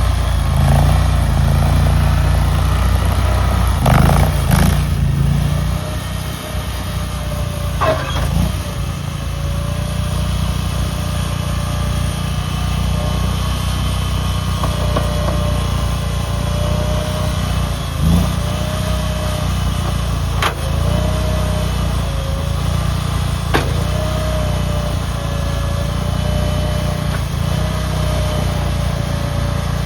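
Stand-on skid loader's engine running steadily while the machine is driven, with a thin wavering tone above the engine note and a few sharp knocks or clanks along the way.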